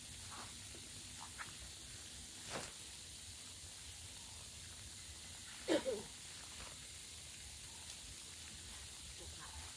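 Quiet outdoor ambience with a steady high hiss, a few faint brief sounds, and one short voice-like sound about six seconds in.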